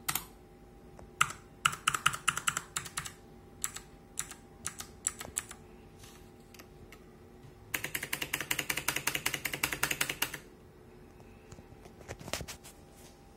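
RAKK ILIS mechanical keyboard with Outemu Blue clicky switches being typed on. The keystrokes come in short irregular bursts of sharp clicks. Past the middle there is a fast, even run of roughly ten keystrokes a second lasting almost three seconds, and a few scattered presses come near the end.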